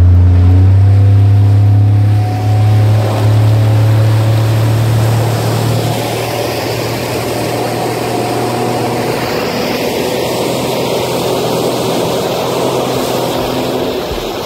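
Speedboat engine running at speed, a steady low drone with the rush of water along the hull. After about five seconds the drone eases and the rushing water is the louder sound.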